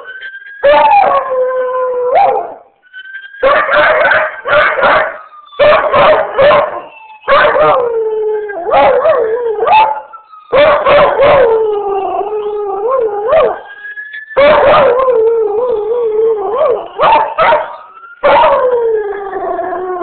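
Beagle–shepherd mix dog howling: long wavering howls broken up by repeated clusters of short, sharp baying yelps, every second or two.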